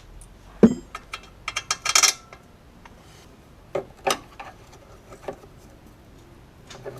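Metal hand tools clinking and knocking on steel car parts: one sharp ringing strike, then a quick run of clinks and a few separate knocks.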